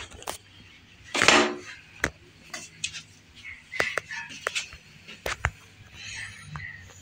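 Handling noise: a scatter of clicks, knocks and scrapes from hard objects moved close to the microphone, with one louder, longer scrape about a second in.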